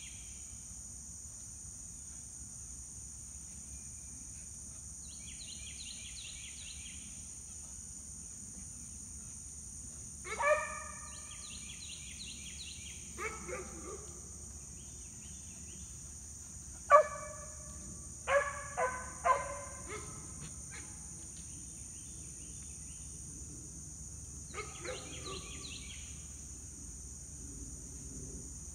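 Kemmer cur squirrel dog barking at intervals: one bark, a pair, one loud bark, then a run of three close together, and a couple of fainter ones near the end. A steady high insect drone and pulsing insect trills run underneath.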